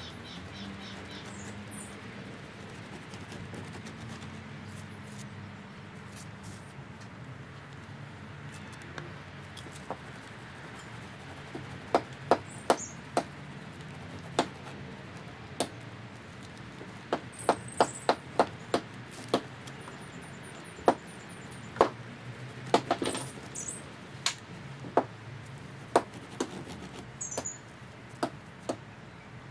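Small garden birds chirping now and then in short high calls over a steady low background hum. From about a third of the way in, a long irregular run of sharp taps and clicks, the loudest sounds, from painting tools knocking against the canvas and a hand-held palette.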